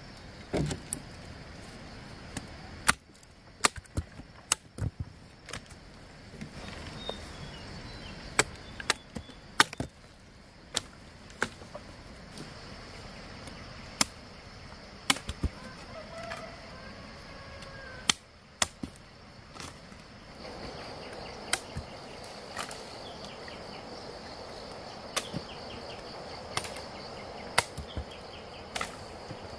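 Irregular sharp chopping blows, about one a second, some much louder than others. A steady high insect drone comes in about two-thirds of the way through, with a few faint bird calls.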